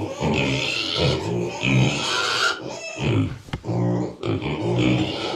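Kunekune piglets grunting in a steady run of short, low grunts, with one sharp click about three and a half seconds in.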